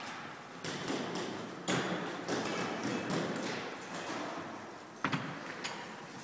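A wheelchair and climbing ropes knocking and rattling as the rider hauls himself up the ropes hand over hand: irregular knocks and thuds, the sharpest about five seconds in.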